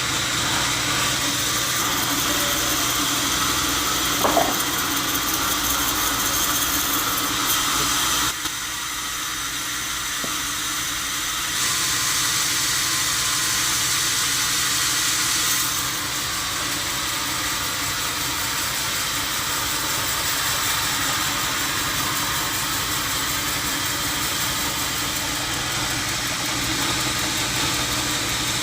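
Sawmill machinery running steadily, its sound changing abruptly a few times in the first half.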